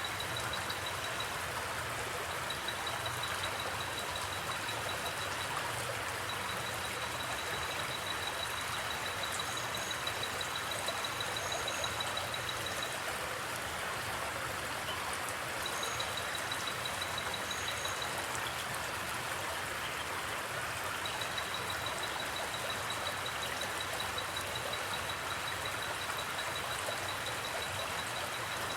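River water flowing steadily, with crickets trilling in long, high-pitched pulsing runs that stop and start again several times.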